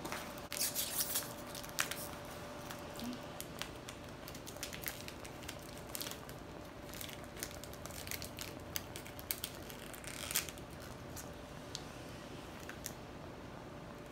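Plastic snack wrapper crinkling and rustling as it is handled and torn open, in scattered sharp crackles. A faint steady hum runs underneath.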